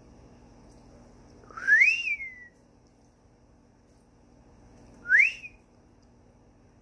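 Two loud whistles: the first, about a second and a half in, slides up and then falls away; the second, about five seconds in, is a shorter upward slide.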